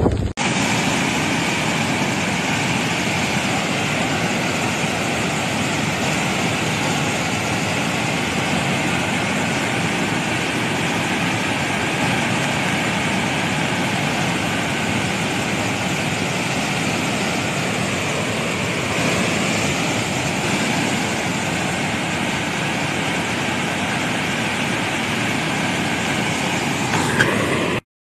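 Swollen floodwater and a waterfall in spate rushing: a loud, steady, even noise that cuts off suddenly just before the end.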